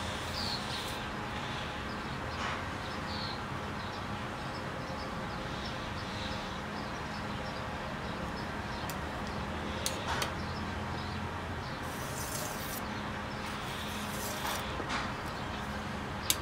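Steel knife blade scraping across a wet whetstone in short strokes, with a pause in the middle and a few light clicks of the blade on the stone, over a steady low hum.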